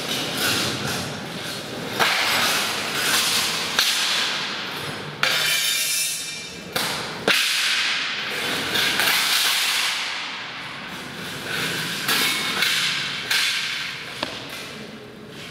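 A large burlap sheet being lifted and shaken between two people, rustling and flapping, with several sharp snaps of the cloth.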